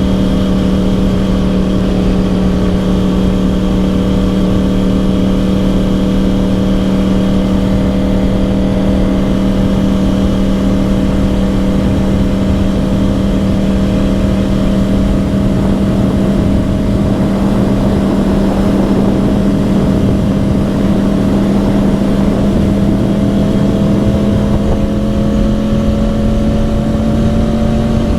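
2010 Yamaha R1's crossplane inline-four with Yoshimura exhausts running at a steady cruise, its pitch holding even and creeping up slightly near the end, over wind and road noise.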